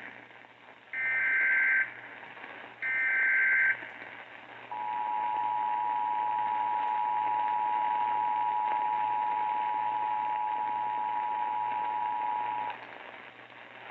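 Emergency Alert System SAME header data bursts, the last two of three, each about a second of harsh digital buzzing, followed by the EAS two-tone attention signal held steady for about eight seconds. This is received over radio with a constant static hiss. The sequence opens an emergency alert, here a tornado warning.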